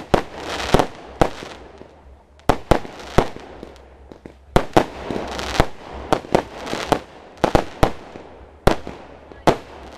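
Consumer firework battery firing shot after shot. More than a dozen sharp bangs come at irregular intervals, with crackling from the bursting stars in between.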